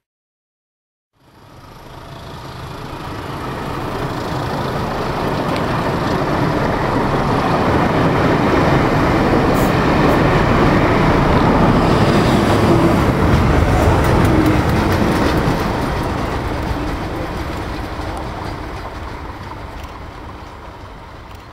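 Passenger coaches of a train rolling past at close range, wheels running on the rails. The noise comes in after about a second of silence, swells to a peak midway and fades as the train draws away.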